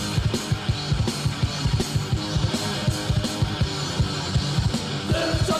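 Hardcore punk music: distorted electric guitars over fast, driving drums in an instrumental passage with no singing.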